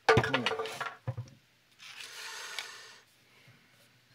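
Handling noise of a plastic bottle-cap figure and a plastic bottle: a clatter of knocks in the first second, then about a second of rubbing as the figure is worked onto the bottle's cap.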